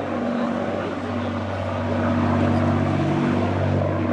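An engine running steadily: a low, even drone with a few level humming tones that shift slightly about three seconds in.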